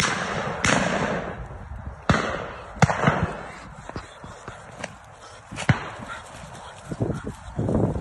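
Shotguns firing at flushed pheasants: single sharp reports, several in the first three seconds and one more near six seconds, each trailing off in echo.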